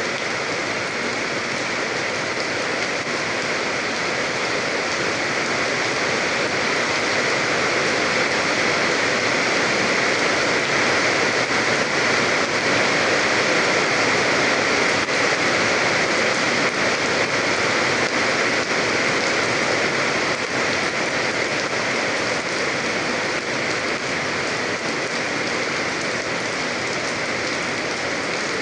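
Steady rain falling, a dense even hiss of drops on surfaces, swelling slightly midway.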